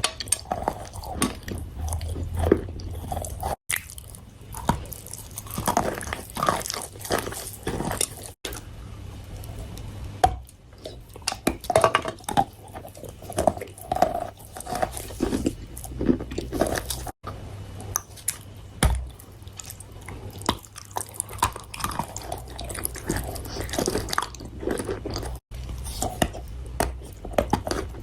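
A person chewing and biting crunchy food, with irregular crisp crunches and mouth sounds. The sound cuts out abruptly for an instant four times.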